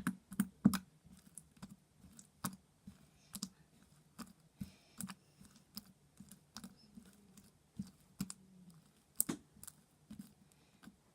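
Sticky, clicky slime being worked by hand, making irregular sharp clicks about twice a second.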